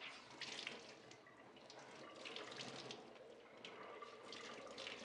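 Water squeezed out of a wet towel being wrung by hand, dripping and splashing onto a stainless steel tub floor in faint, uneven bursts.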